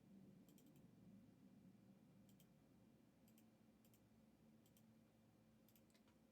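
Near silence with faint, sharp clicks scattered irregularly, a few at a time, over a faint steady low hum.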